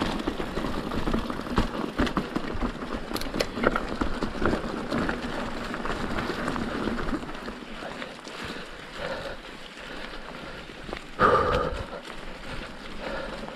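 Mountain bike rolling along a dirt trail: tyre noise and irregular clicks and rattles from the bike, briefly louder about eleven seconds in.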